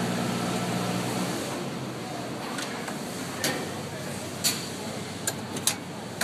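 Steady background chatter and noise of a busy exhibition hall, with a low hum that fades out about a second in. Several sharp clicks and clinks come in the second half.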